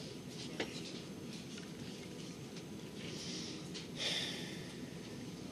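Passenger train running on the rails, heard from inside the carriage as a steady low rumble, with a sharp click about half a second in and two short hisses a few seconds in.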